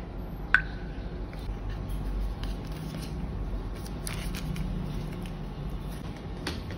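A single sharp click with a brief ringing tail about half a second in, then soft clicks and rustling of hands handling cardboard packaging, over a steady low hum.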